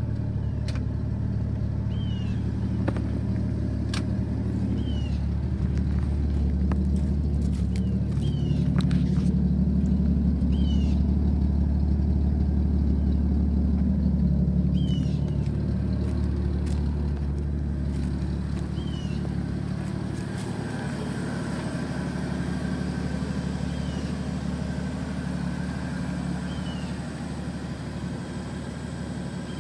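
A Ford 300 cubic-inch (4.9 L) inline-six idling steadily while still cold, at about 600 rpm, shortly after a cold start. It is louder for a stretch in the middle and eases off a little later.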